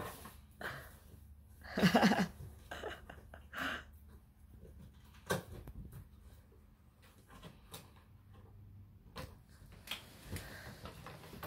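Light taps, scuffs and rustles of a cat batting at a feather wand toy at the opening of a cardboard box, with a brief vocal sound about two seconds in.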